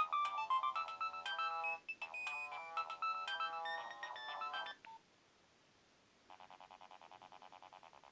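Nokia 1112 ringtone: a quick melody of bright electronic beeping notes that stops about five seconds in. After a short gap, a quieter tone starts pulsing rapidly, about six or seven times a second.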